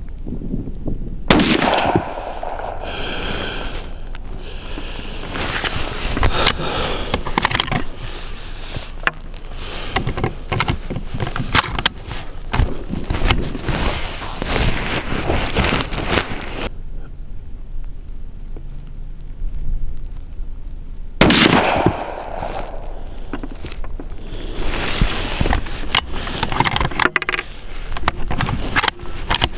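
Two rifle shots from an Orsis 120 bolt-action rifle, one about a second in and another some twenty seconds later, with wind buffeting the microphone between them.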